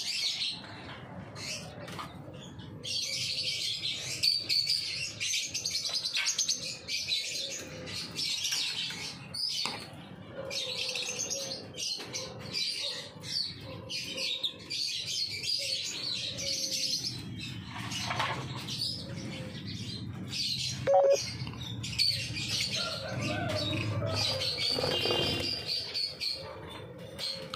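A flock of small caged aviary birds chirping and chattering non-stop in a dense, high-pitched din. Scattered clicks and knocks from the cage being handled, the sharpest about 21 seconds in.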